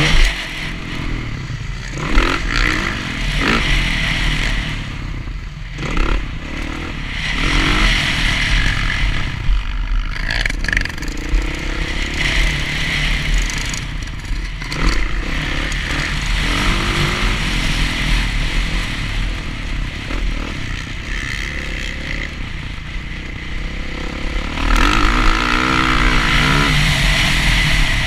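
Dirt bike engine ridden hard, revving up and easing off over and over as the rider works the throttle and shifts, with brief drops in loudness where the throttle is rolled off.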